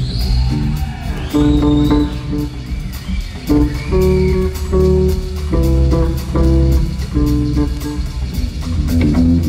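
Electric bass guitar playing a solo through the arena PA: a run of separate held notes over a heavy low end.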